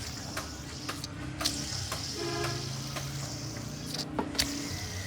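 Toyota Altis engine idling steadily, a low hum with a steady hiss over it, run after work on its timing adjuster to check the noise.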